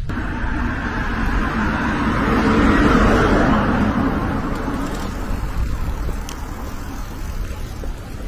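A road vehicle passing: a rushing noise that swells to a peak about three seconds in and slowly fades, over a steady low rumble.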